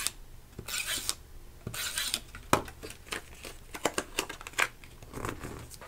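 A double-sided tape runner drawn along a strip of patterned paper in three short, dry rasping strokes, followed by paper crinkling and light clicks and taps as the strip is handled and folded.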